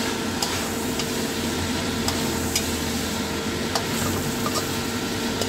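Pork liver sizzling in oil in a wok while a metal spatula stirs it, scraping and clicking sharply against the pan several times. The cooking liquid has boiled off, leaving the liver frying in its oil as it nears done.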